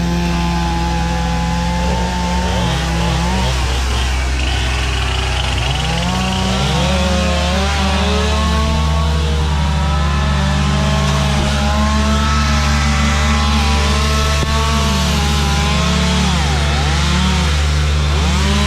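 Chainsaw running at high revs, its pitch dipping and recovering several times as it cuts into storm-fallen trees.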